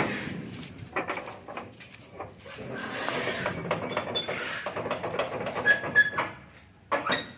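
Irregular metal knocks and scraping, with several short ringing pings about two-thirds of the way in and two sharp knocks near the end, as of metal parts being handled.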